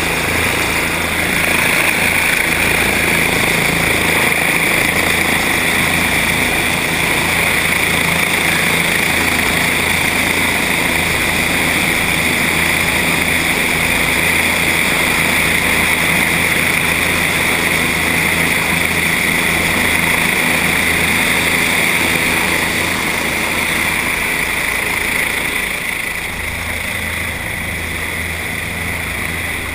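Helicopter running on the ground with its main rotor turning: a steady loud engine and rotor noise with a constant high whine, a little quieter in the last few seconds.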